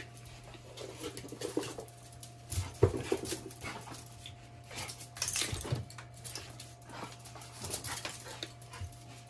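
Young Shiba Inu whining softly in a few short whines, with scattered light clicks from its claws and leash on the tile floor.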